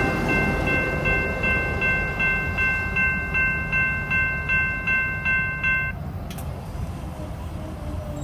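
Rumble of a loaded coal train fading as its last cars go by, with a grade-crossing bell ringing rapidly, about three strokes a second, that stops abruptly about six seconds in.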